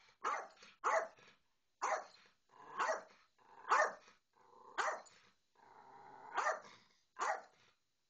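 Small terrier, the Yorkshire terrier, barking repeatedly in sharp, high single barks, about eight of them roughly a second apart.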